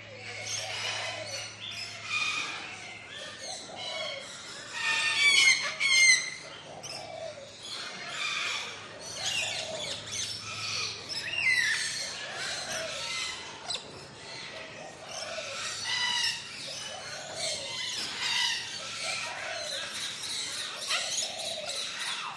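A chorus of tropical birds calling and chirping over one another. A lower call repeats every two seconds or so, and a louder run of rapid, quickly repeated calls comes about five seconds in.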